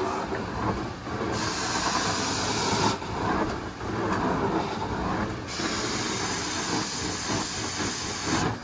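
Hot-water-extraction carpet-cleaning wand running with a steady suction rush. A brighter hiss comes in about a second and a half in, drops out near three seconds, and returns about five and a half seconds in, as the wand is worked over the carpet.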